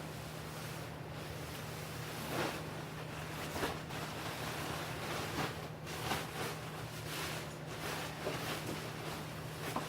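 Wind-like hiss with irregular rustling and handling noises over a steady low hum.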